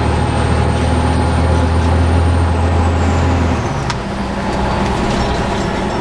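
Fire truck's diesel engine running, heard from inside the cab as the truck drives. The low engine drone drops off a little past halfway through, just after a faint high whine glides down, and a single sharp click comes about four seconds in.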